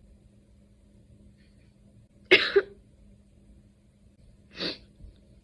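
A person's short explosive outburst of breath, of the sneeze-or-cough kind: a loud one about two seconds in, then a weaker one near the end.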